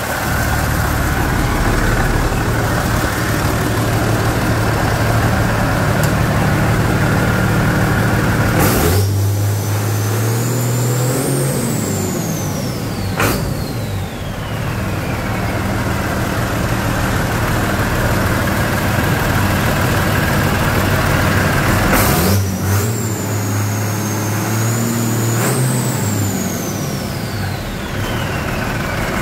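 1998 John Deere 6068TF 6.8 L turbocharged inline-six diesel on a test run: idling steadily, then revved up twice for a few seconds each, dropping back to idle in between. With each rev a turbocharger whistle climbs high and then glides slowly down as the engine settles. A sharp click comes as each rev starts and as it ends.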